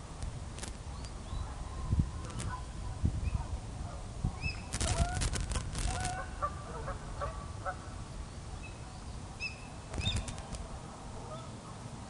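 Geese honking repeatedly, busiest about five to eight seconds in, with a few brief high bird chirps. Low wind rumble runs under it on the microphone, and there are clusters of sharp clicks about five seconds in and again near ten seconds.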